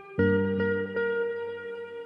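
Background music: a chord comes in a moment in and rings on, with notes sounding over it at an even pulse.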